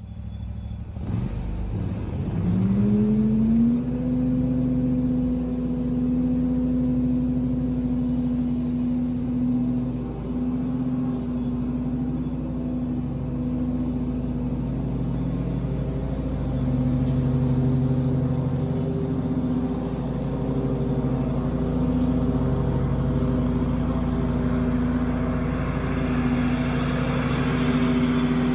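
Commercial zero-turn mower engine rising in pitch as it throttles up over the first few seconds, then running steadily at full throttle while mowing. Near the end a rushing hiss grows louder as the mower comes close.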